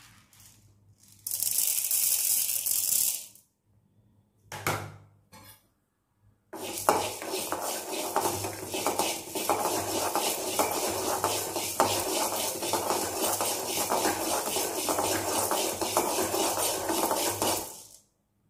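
Dry urad dal poured into an aluminium kadai, a rattling hiss of falling grains lasting about two seconds. A few seconds later a metal spoon stirs and scrapes the lentils around the dry pan for about eleven seconds, with frequent small clicks of metal on metal.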